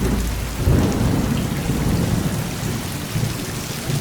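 Heavy rain falling with a steady hiss, while a low rumble of thunder swells about half a second in and slowly dies away.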